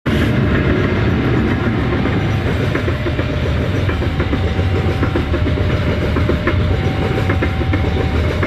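Passenger or freight train cars rolling past close by: a steady loud rumble with wheels clacking over the rail joints, and a faint thin tone that comes and goes.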